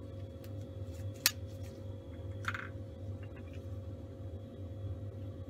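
Steady low hum of a laboratory clean bench's air-flow blower, with a single sharp click about a second in and a brief soft hiss a little before halfway.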